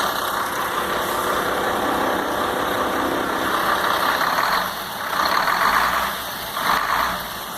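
Iveco 480 truck's diesel engine running at idle just after starting on the first try, with two short swells of louder noise in the second half.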